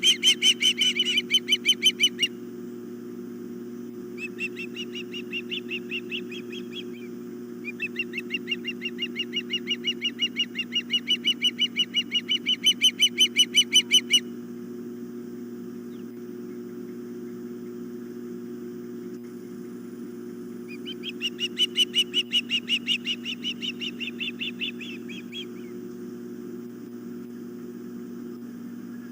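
Ospreys calling at the nest: long runs of rapid, high, evenly spaced chirps in several bouts, with a long pause in the middle, over a steady low hum.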